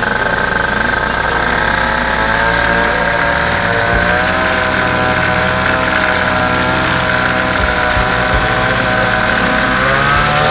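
Flash paramotor's Sky 100 two-stroke engine running steadily with its propeller turning, then rising a little in pitch near the end as the throttle opens slightly.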